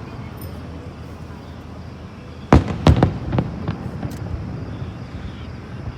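Fireworks display: aerial shells bursting, with two loud bangs close together about halfway through and a few fainter pops after, over a low rumble.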